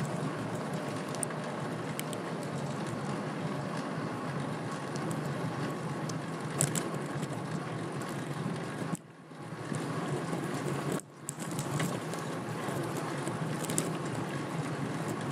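Steady rushing noise of a fixed-gear bicycle ride, wind over the camera microphone mixed with tyres on the road, with a few faint clicks. Twice past the middle it drops away briefly.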